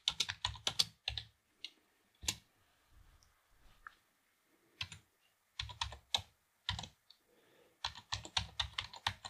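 Computer keyboard being typed in short bursts of keystrokes with pauses between them: a quick run of keys with a single key press about two seconds in, then more bursts of typing from about five seconds in.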